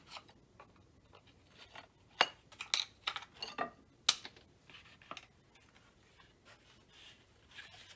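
Scattered sharp clicks and taps of hard plastic parts and a small screwdriver being handled, as the polymer grip side panels of a Magpul Hunter rifle stock are worked off. The clicks come mostly in the first half and fade to faint handling noise.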